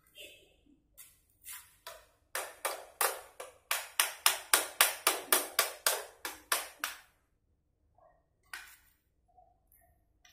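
Hammer striking metal: a few scattered taps, then a steady run of about twenty sharp, ringing blows, roughly four a second, that stops about two-thirds of the way through.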